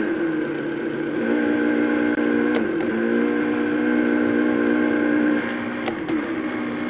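Vitamix 5200 blender motor running, blending hot water with milk powder and gelatin: a steady whine that shifts in pitch a few times.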